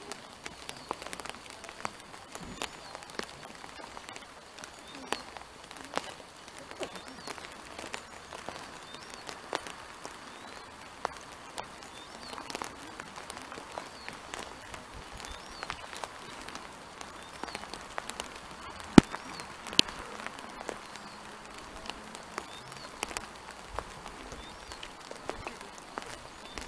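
Quiet open-air background with scattered faint clicks and ticks, and two sharper clicks close together about two-thirds of the way through.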